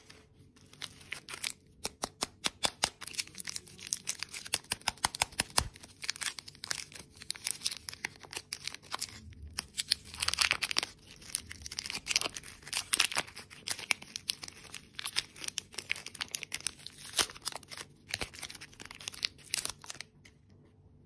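Plastic candy-bar wrappers crinkling and tearing as they are pulled open by hand: a dense run of sharp crackles with a few short pauses, stopping near the end.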